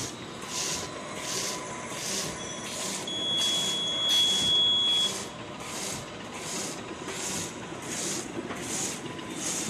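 Plastic bag making machine running at production speed, with a regular hissing stroke about twice a second as it cycles. A steady high tone sounds for a couple of seconds near the middle.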